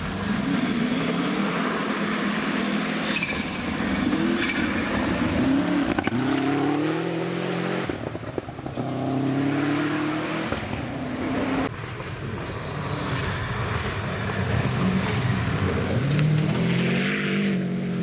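Subaru Impreza rally car's flat-four engine being driven hard on a stage, its pitch climbing and dropping repeatedly as it accelerates and changes gear. The sound breaks off abruptly twice as it cuts between separate passes.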